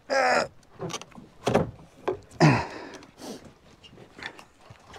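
Wordless voice sounds: a short exclamation at the start and two calls that fall in pitch, among scattered knocks and clicks.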